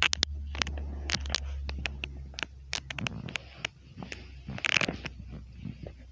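Irregular clicks, scratches and rustles of two kittens scuffling and wrestling on a rug and cushion, over a low steady hum.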